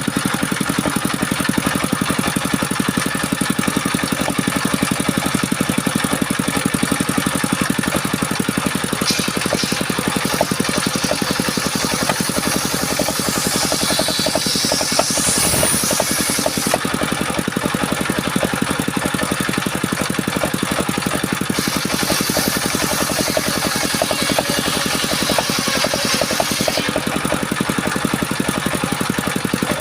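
Engine of a wood-cutting circular saw machine running steadily. A higher hiss comes in twice, from about nine to seventeen seconds and again from about twenty-two to twenty-seven seconds, as the saw works through sengon wood.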